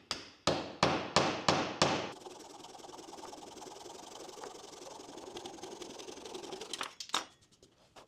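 Hammer tapping a wooden plug into a hole in a board: about six sharp blows, some three a second, the last ones loudest. Then a steady rasping noise for about four and a half seconds, ending in a few sharp clicks.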